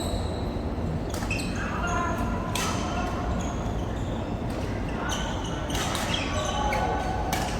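Badminton rackets striking a goose-feather shuttlecock in a rally: sharp string cracks every second or two, with voices in a large hall.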